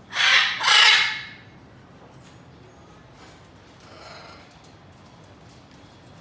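Blue-and-yellow macaw giving two loud, harsh, raspy squawks back to back at the start, then a much fainter call about four seconds in.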